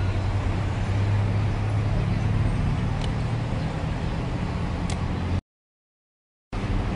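Steady low rumble of street traffic and engines, with a few faint ticks; the sound cuts out to silence for about a second near the end.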